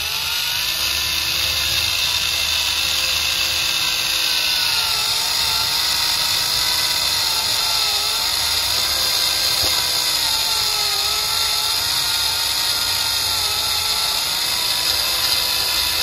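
Electric drive motor and gearbox of a homemade remote-control HMT 5911 model tractor whining steadily under load while it drags a cultivator through sand. The pitch wavers and dips slightly now and then as the rear wheels dig in.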